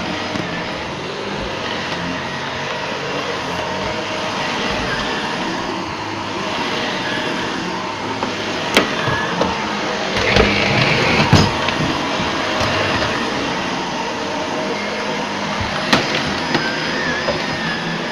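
Shark Rotator Professional Lift-Away upright vacuum cleaner running steadily while vacuuming, with a rougher patch about ten seconds in and a few sharp clicks as it picks up debris or knocks against things.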